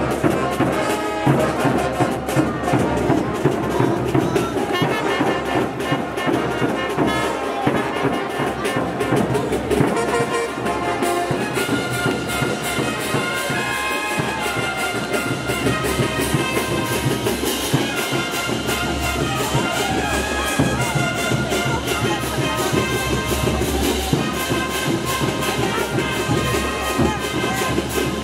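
Live brass band playing tinku dance music: trumpets and trombones over a steady drumbeat and low brass. The music shifts abruptly about eleven seconds in.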